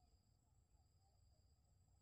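Near silence: faint, steady high-pitched insect trilling, likely crickets, with a few soft short chirps underneath.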